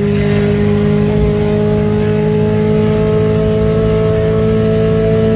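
Fiat Premio's turbocharged 1.5 four-cylinder engine pulling steadily in gear, heard from inside the cabin, its pitch rising slowly as the car gathers speed.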